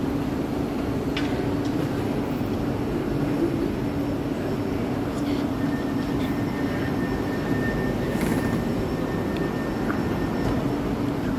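Steady hum of an ÖBB Cityjet electric train standing at an underground platform, with one constant low tone, under the murmur and footsteps of passengers getting off.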